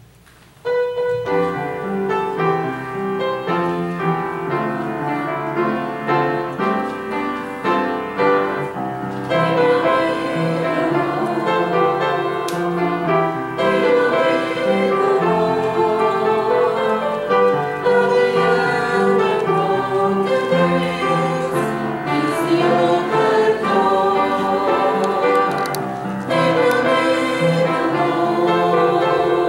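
Church music starts suddenly about a second in and carries on: piano with voices singing.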